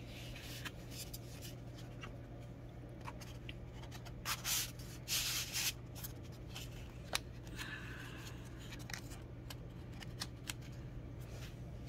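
Small cardboard box being handled and opened by hand: soft rustling and light taps, with two short scraping hisses about four and five seconds in.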